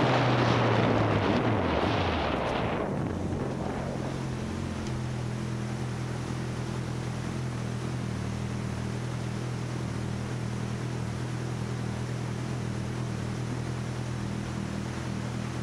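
Motorcycle engine slowing down: for the first three seconds wind rushes over the microphone while the engine note falls. The engine then settles into a steady low-revving hum as the wind noise dies away.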